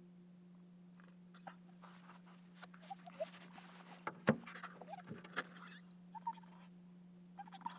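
Faint rustling and scattered small clicks from someone moving beside a wicker basket on a carpeted floor, with one sharper knock about four seconds in and a few short squeaks, over a steady low hum.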